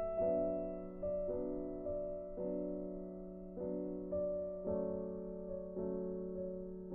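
Background music: slow, gentle piano-like keyboard notes struck about once a second, each fading away before the next, over a held low note.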